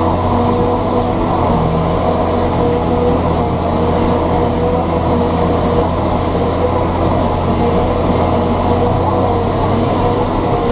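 John Deere 7710 tractor's six-cylinder diesel engine running steadily, a constant drone with no change in pitch.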